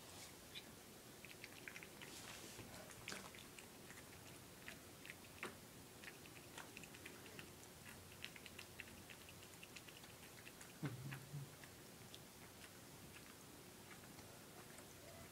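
Two domestic cats eating soft, soupy rehydrated cat food from metal bowls: faint chewing with many small scattered clicks. One louder knock comes about eleven seconds in.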